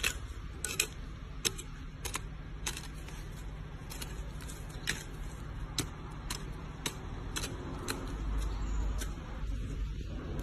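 Hand hoe with a wooden handle chopping into garden soil: a string of sharp clicks, one or two a second, over a faint steady low hum.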